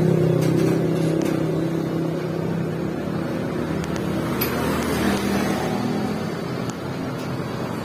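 A vehicle engine running steadily, fading away over the first few seconds, then steady street noise with a few light clicks.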